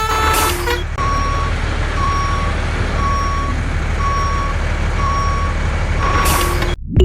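Electronic truck sound effect: a steady engine rumble with a reversing beep about once a second, and a hissing air-brake burst near the start and again near the end. It cuts off suddenly just before the end.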